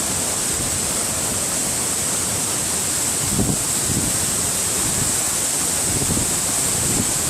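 Waterfall: the steady rush of falling water, with a few short low bumps of wind on the microphone about three and a half, four and six seconds in.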